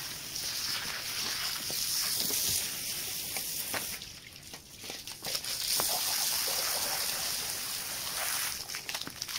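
Water sloshing and trickling over a wet rug being washed, with scattered small taps and clicks; it eases off briefly about four seconds in.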